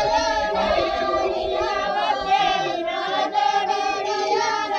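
A group of voices singing together in chorus, several people holding long, wavering notes at once.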